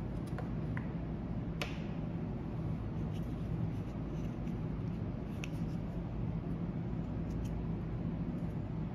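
Hard plastic toy doctor-set pieces clicking and tapping as they are handled and picked up, a few sharp clicks, the clearest about a second and a half in. A steady low hum runs underneath.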